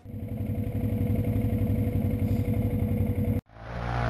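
ATV engine idling steadily with a fast, even pulse, heard close up. It cuts off abruptly about three and a half seconds in, and a louder engine with splashing mud spray rises near the end.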